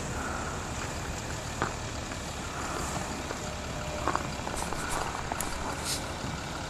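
Large tow truck running steadily while it hauls a car away, with a few scattered clicks and a short hiss near the end.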